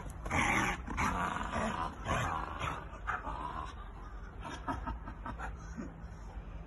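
A dog vocalizing in play, in a few short noisy bursts over the first three seconds or so, then quieter.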